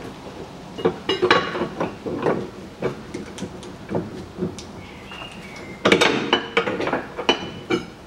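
Metal clinks and knocks of a pry bar and tools against a Kia Sportage's rear anti-roll bar and end links as the bar is levered up to free the links. They come in irregular clusters, heaviest about a second in and again near the end, with a brief high squeak about five seconds in.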